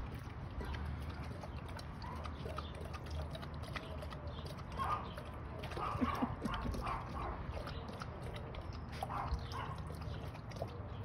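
Two Akitas lapping water from a rubber tub: quick rhythmic lapping and splashing clicks, busiest around the middle.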